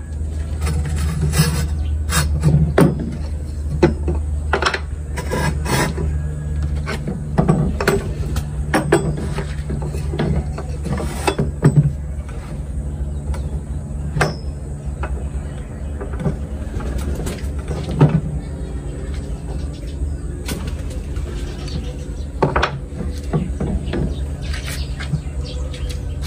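Wooden boards being handled and set onto metal pipe clamps on a wooden workbench: scattered knocks and clacks of wood on wood and metal over a steady low hum.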